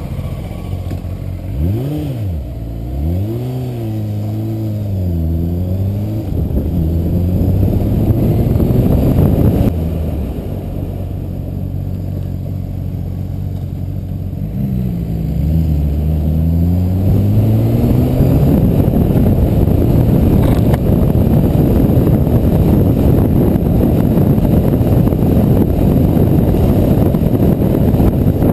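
Motorcycle engine idling, then pulling away, its revs rising and falling several times as it goes up through the gears, with a second spell of acceleration about 15 seconds in. From about 18 seconds on, wind rush and engine noise at road speed take over.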